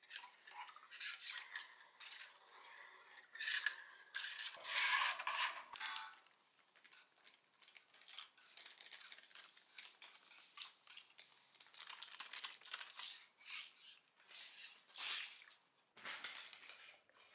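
Dry hot-bluing salts (sodium hydroxide and potassium nitrate) being poured into a steel bluing tank and spread along it by a gloved hand: an irregular run of gritty rustling and scraping, fullest about four to six seconds in.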